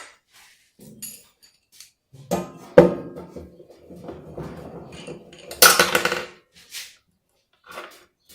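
Metal clanks and scraping as a washing machine motor on its steel mounting plate is set into place: a few knocks, the loudest about three seconds in ringing briefly, and another loud clatter around six seconds in.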